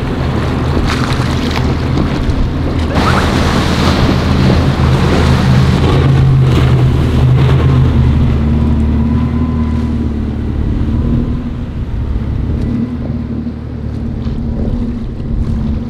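Outboard engines of a center-console sportfishing boat running steadily at speed, with rushing water and spray off the hull and wind on the microphone. It gets a little quieter in the last few seconds.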